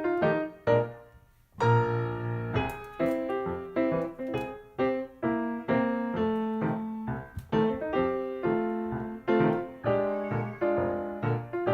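Background piano music: a light tune of plucky, evenly paced notes, with a brief pause about a second in.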